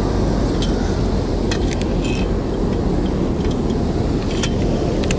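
Steady low rumble aboard a small fishing boat, with scattered light clicks and clinks through it.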